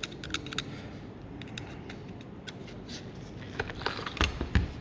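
Small metal parts being handled on a workbench: scattered light clicks and taps, with a few dull knocks near the end.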